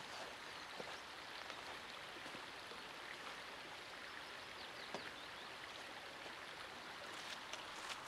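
Faint, steady rush of a nearby river, with a few light footfalls on loose stones.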